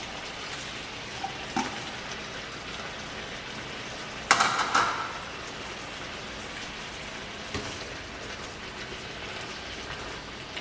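Chicken, mushrooms and coconut-milk sauce bubbling and sizzling in an uncovered pan, a steady hiss as the liquid cooks down. A brief clatter about four seconds in, with a few faint clicks.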